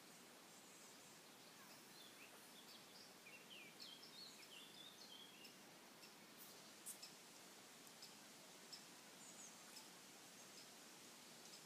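Faint outdoor hush with small birds chirping, a quick run of short high chirps in the first half and a few more later. A few soft, sharp clicks come in the second half, the loudest about seven seconds in.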